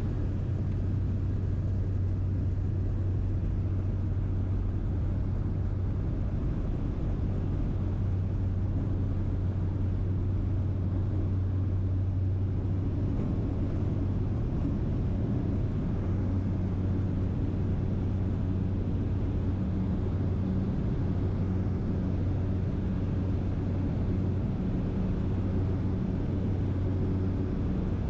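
Aircraft cabin noise in flight: a steady low drone with a strong unchanging hum under an even rush of noise.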